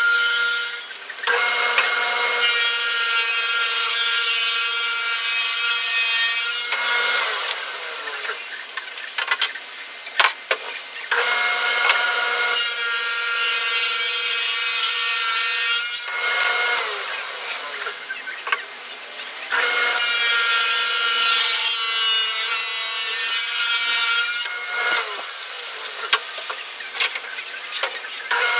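Table saw ripping wooden boards: the motor and blade run with a steady high whine while the blade cuts through the wood. Three times the whine falls away in pitch as the saw winds down, then starts up again for the next pass.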